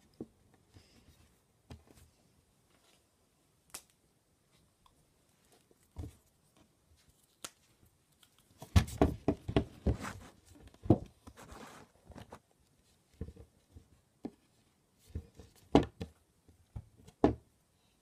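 Handling noise of small taps and knocks from hands working Blu Tack on a wooden tabletop. The taps are scattered, with a quick run of them about nine to eleven seconds in and a few single louder knocks near the end.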